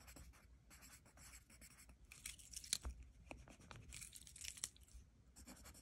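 Faint scratching of a pen writing on lined notebook paper, in short irregular strokes.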